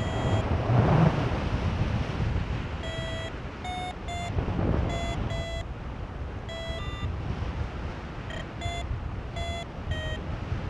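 Paragliding variometer beeping in short, irregular beeps whose pitch shifts from beep to beep, the vario's signal that the glider is climbing in lift. Under it, steady wind rush on the microphone, strongest in a gust about a second in.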